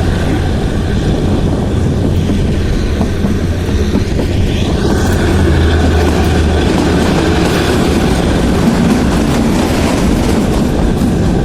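Kalka–Shimla narrow-gauge toy train running: a steady rumble of the carriage on the rails with a low, even hum underneath, heard from on board.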